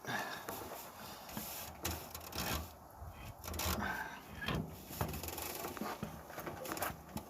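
Irregular scraping and rubbing with scattered light knocks: a truck air compressor being shifted and worked against its mounting on a Cat 3408 diesel engine while it is being fitted.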